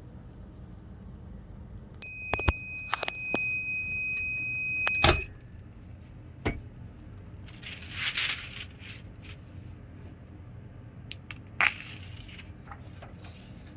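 Heat press timer alarm sounding one steady high-pitched tone for about three seconds at the end of the press time, stopped with a knock. A couple of short bursts of rustling follow.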